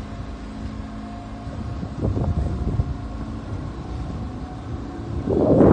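Boat motor running steadily at low speed, with wind buffeting the microphone and growing much louder near the end.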